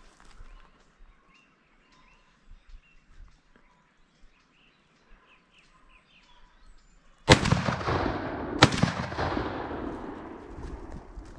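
Two shotgun shots loaded with buckshot, a little over a second apart, about seven seconds in, each a sharp blast followed by a long rolling echo that fades over several seconds. Before them, faint bird chirps.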